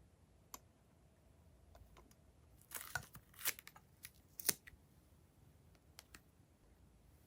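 Sparse sharp clicks and three short crackling bursts from three to four and a half seconds in, from hands handling slime and the things being mixed into it.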